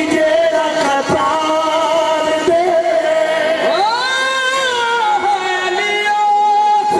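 Qawwali: male voices holding long, drawn-out notes over harmonium, the lead voice sliding up into a high held note about four seconds in.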